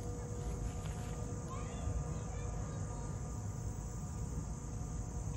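Steady high-pitched chirring of insects in the garden, over a low outdoor rumble, with a few short faint chirps about a second and a half in.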